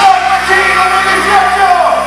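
A live rock band playing loudly through a PA: a lead singer's voice over electric guitars and drums.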